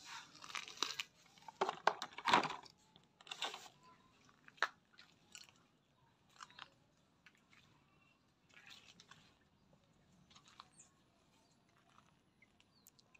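Footsteps crunching on gravel and stony dirt: irregular crunches and clicks, loudest and closest together in the first few seconds, then sparse and faint.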